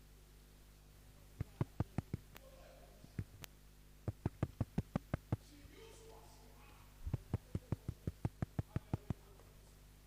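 Quick runs of sharp clicks, about five a second, in three bursts with a few single clicks between them, over a low steady electrical hum.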